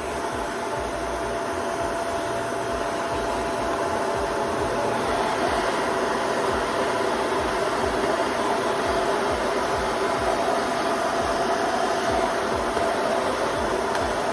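Dyson Ball Multifloor 2 upright vacuum cleaner running steadily: a rush of air with a constant motor tone.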